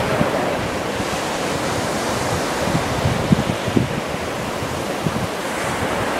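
Ocean surf washing up the beach in a steady rush, with a few low gusts of wind buffeting the microphone about three to four seconds in.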